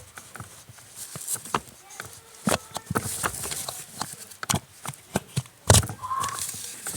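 Irregular metallic clicks and knocks as a splined steering-shaft coupling is worked free and pulled out of a Mercedes W210's steering gear, with one heavier knock a little before six seconds in.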